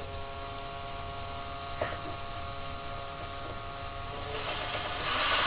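A small electric motor running with a steady whine, then a louder, rougher noise about four seconds in.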